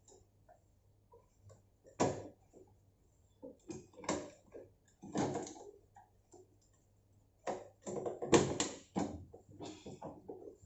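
Plastic cover being fitted back over a washing machine's pulsator: a series of sharp clacks and knocks, the loudest about two seconds in, with a quick run of clatter near the end as it is pressed into place.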